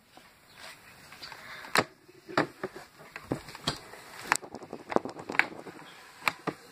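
Handling noise from small items on a tabletop: a dozen or so sharp, irregular clicks and light knocks, such as nail polish bottles and caps being picked up and set down.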